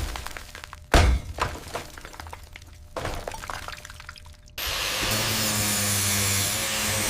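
Two heavy thunks about two seconds apart, each followed by clattering, then a steady hiss with a low hum that starts about four and a half seconds in.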